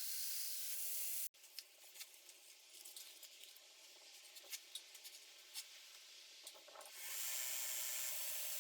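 Belt grinder with a contact-wheel attachment running faintly and steadily, a hiss with a low hum in it, which cuts off abruptly about a second in. Several seconds of faint light ticks and scrapes follow, and then the same steady running sound returns about seven seconds in.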